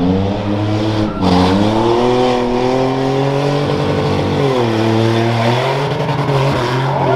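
SUV engine revving hard at full throttle on a dirt rough-truck course: the pitch climbs about a second in and holds high, dips briefly past the middle, rises again, then falls near the end.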